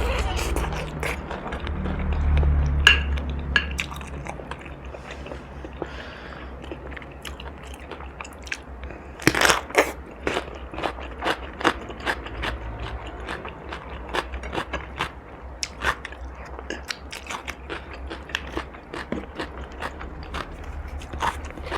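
Bites and chewing of crunchy food, many crisp crunches and clicks. A run of loud crunches comes about nine to ten seconds in, followed by steadier chewing.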